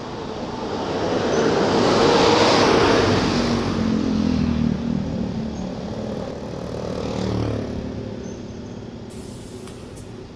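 Motorcycle riding noise on a town road: the bike's engine running under wind and tyre rush. About two seconds in, an oncoming bus passes close, and the sound swells and then fades.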